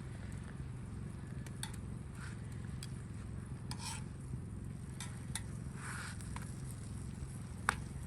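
Cooking fajita meat, peppers and onions in a pan over a campfire: a utensil stirring and scraping in the pan with scattered clicks and taps, and one sharp metallic click near the end.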